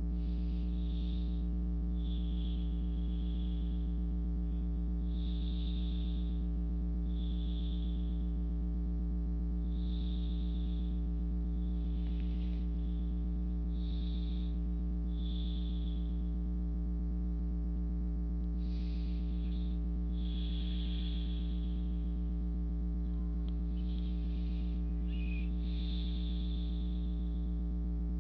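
Slow, soft breaths close to a microphone, one every second or two, over a louder steady electrical hum.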